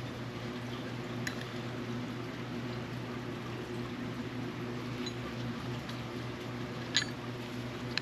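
Small sharp clicks from metal reel parts and tools being handled, one about a second in and a louder one near the end, over a steady low hum.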